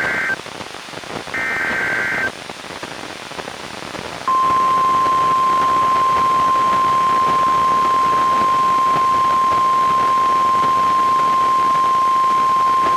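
NOAA Weather Radio alert coming through a weather radio's speaker over steady radio static. First, the tail of one burst and then a final burst of the warbling digital SAME header tones. Then, about four seconds in, the steady 1050 Hz warning alarm tone sounds for about nine seconds, signalling that a warning is about to be read.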